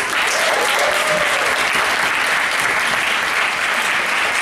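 Audience applauding loudly and steadily in a council chamber at the end of a public comment.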